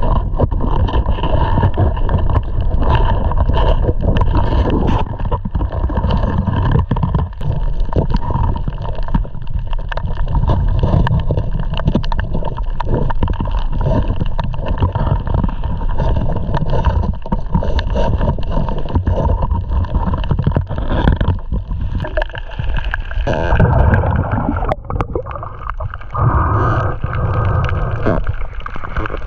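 Underwater sound from a submerged camera while snorkelling: muffled water noise with many small crackles and clicks throughout.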